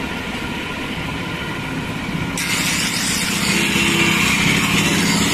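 Belt-driven grinding wheel running with a steady hum. About two and a half seconds in, a steel hedge-shear blade is pressed against it and grinds with a loud, steady hiss as its cutting edge is sharpened.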